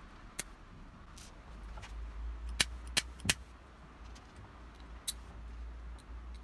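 Small hard parts clicking and clinking as a bow cam pulley and its metal fork bracket are handled and fitted by hand. The clicks are sharp and separate, with three in quick succession near the middle, over a low handling rumble.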